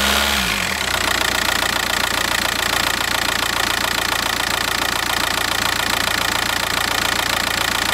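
2004 Volkswagen Passat TDI turbodiesel engine dropping back from a held rev to idle within the first second, then idling steadily with a fast, even ticking.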